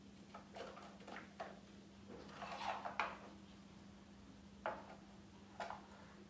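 Soft clinks and taps of small glass spice containers being handled, with a short scraping stretch about two and a half seconds in, over a faint steady hum.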